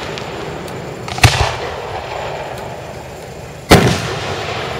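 Aerial fireworks shells bursting close by: two loud booms about two and a half seconds apart, each trailing off in a short echo, over a steady background hiss.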